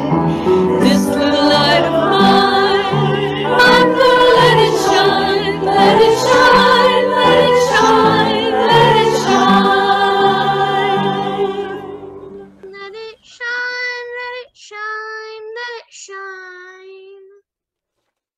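A song is playing: voices singing over sustained instrumental accompaniment, which fades out about twelve seconds in. A single voice then sings a few held notes alone and stops.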